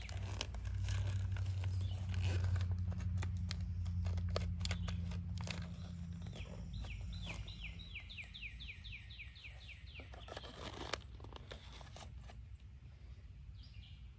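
Crunching and rustling of wood-chip mulch and potting soil as hands press soil around a transplant, in many small irregular clicks. A bird sings a rapid trill of short falling notes about halfway through, over a steady low hum that fades out soon after.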